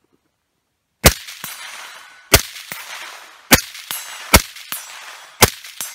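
Five suppressed shots from a 5.56 AR-type rifle fitted with a Yankee Hill Machine Phantom M2 .30-calibre suppressor, about a second apart. Each shot is followed about a third of a second later by the fainter ring of the bullet hitting a steel target roughly 100 yards downrange.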